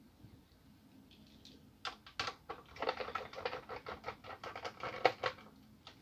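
A rapid run of small clicks and taps from handling the plastic case and parts of an Asus K53SD laptop during disassembly. It starts about two seconds in and stops a little after five seconds, with the sharpest click near the end.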